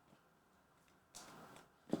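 Trading cards being handled by hand: a short, soft rustle about a second in, then a single sharp tap just before the end.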